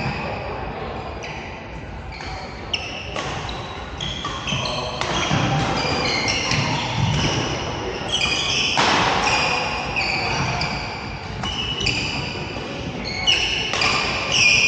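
Badminton play on an indoor court: many short, high squeaks of shoes on the court floor, a few sharp racket hits on the shuttlecock, and players' voices in the background.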